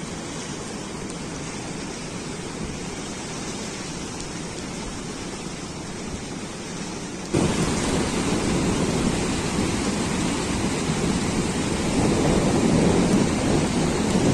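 Steady rushing noise of heavy rain and a swollen, fast-flowing river. About seven seconds in it jumps abruptly louder and deeper.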